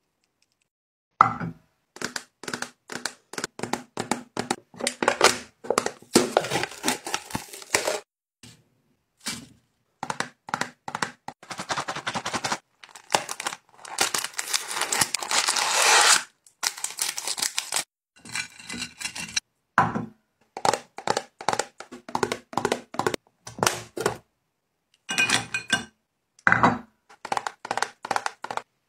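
Snack packaging being opened by hand: cardboard boxes and foil wrappers tearing and crinkling in many short bursts, with a longer stretch of tearing about halfway through.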